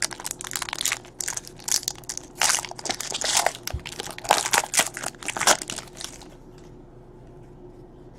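Crinkling and crumpling of a trading-card pack's foil wrapper handled in the hands, a dense run of sharp crackles that stops about six seconds in.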